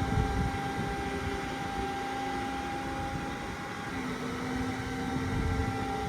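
Steady machinery drone with several held tones, the pitch dipping slightly and shifting about four seconds in, over uneven low rumbling.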